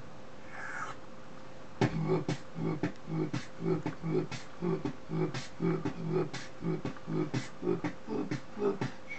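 Human beatboxing: after a quiet start, a steady beat of mouth-made bass kicks and sharp snare-like clicks begins about two seconds in and keeps a regular rhythm.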